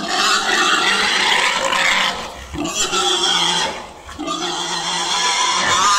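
Pigs squealing in long, loud, harsh screams as they are caught, with brief breaks about two and a half and four seconds in.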